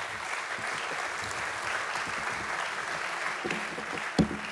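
Audience applauding steadily, with one sharp thump near the end that stands out as the loudest moment.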